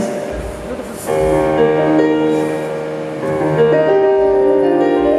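Live band music: a keyboard playing slow, held chords in a piano-like tone, with deep low notes underneath a few times.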